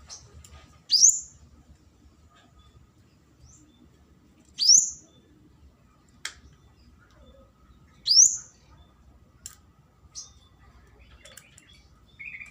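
A kemade (Indonesian songbird) calling: three loud, sharp, rising whistled calls about three and a half seconds apart, with fainter short high chirps and ticks between them.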